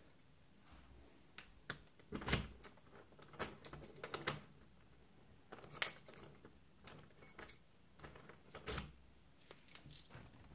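The handle and lock mechanism of a uPVC door being worked to test a newly fitted euro cylinder lock: a scattered series of metallic clicks, rattles and clunks, the loudest about two seconds in.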